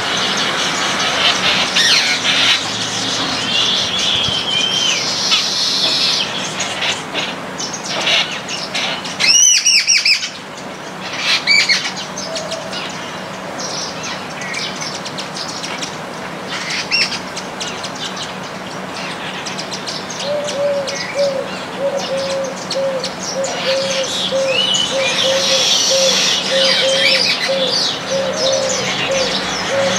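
A mixed flock of baya weavers and munias chirping and chattering without pause, with one louder call about a third of the way in. From about two-thirds through, a low note repeats steadily nearly twice a second underneath the chirping.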